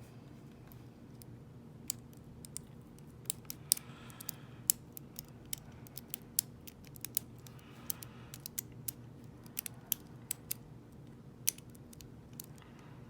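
Lock pick and tension wrench working the pins of a five-pin ISEO euro cylinder: irregular sharp metallic clicks and ticks, coming in clusters from about two seconds in until near the end.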